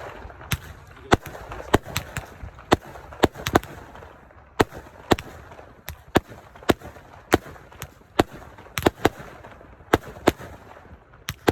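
Fireworks going off in a rapid, irregular series of sharp bangs, about two a second, with a steady crackling haze between them.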